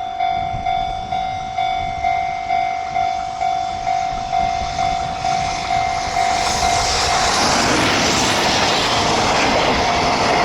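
Japanese level crossing warning bell ringing at about two strokes a second. From about six seconds in, a JR Freight train passes through the crossing: a loud, steady rush of wheel and rail noise that nearly drowns the bell.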